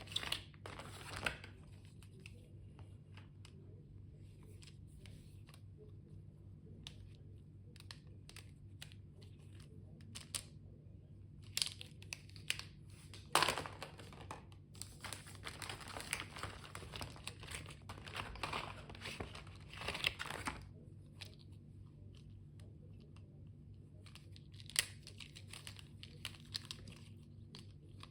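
Stationery packaging being unwrapped by hand: paper and plastic wrapping tearing and crinkling, with scattered small clicks and taps, busiest in the middle stretch. A faint steady low hum runs underneath.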